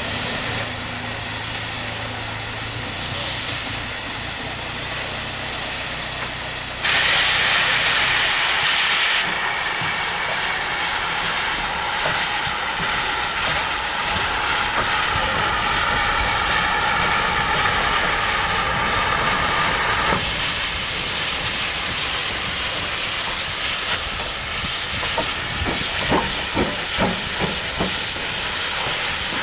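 GWR 'Large Prairie' 2-6-2T tank locomotive No. 4160 letting off steam: a loud, steady hiss that starts abruptly about seven seconds in, after a quieter opening with a low steady hum. A few light clicks come near the end.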